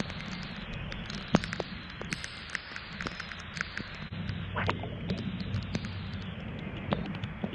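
Steady rush of river water with scattered small splashes and clicks, the sharpest about a second and a half in.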